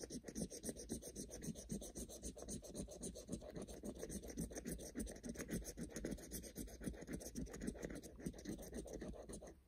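Scratch-off lottery ticket's coating being scraped away with a hand-held disc in rapid back-and-forth strokes, stopping just before the end.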